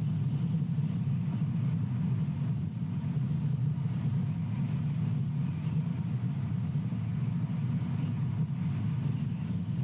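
Wind buffeting the nest camera's microphone: a steady, fluttering low rumble.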